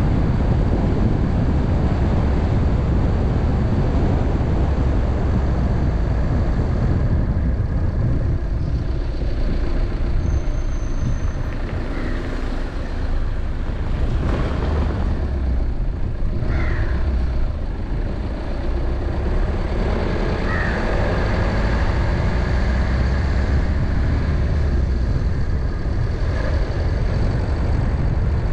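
Steady low rumble of a car driving: engine and road noise. A few faint, short high chirps sound in the middle.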